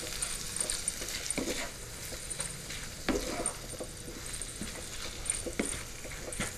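Wooden spatula stirring crab meat and shallots as they fry in oil in a small pan: a steady sizzle with a few scrapes and taps of the spatula against the pan.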